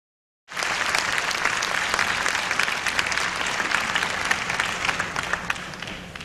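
A large audience applauding with many hands clapping. It cuts in about half a second in and fades away near the end.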